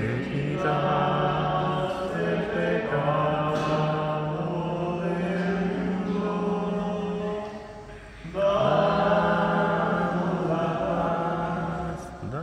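Slow liturgical chant sung in long held phrases, pausing briefly about eight seconds in and again near the end.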